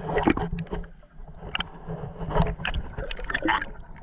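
Creek water sloshing and gurgling around a submerged camera moving just below the surface, in irregular splashes and knocks.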